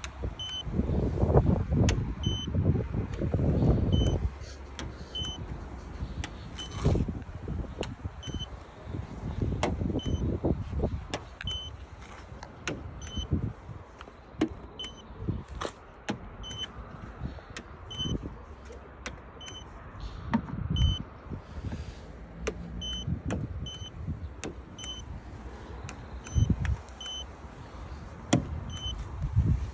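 Handling noise of a car door being worked: thumps, knocks and clicks, loudest in the first few seconds. Under it a faint short high beep repeats about once a second.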